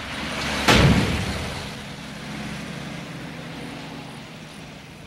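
A sudden loud boom less than a second in, dying away slowly into a low rumble over several seconds. It is a dramatic impact sound effect as the bomb's timer runs out to zero.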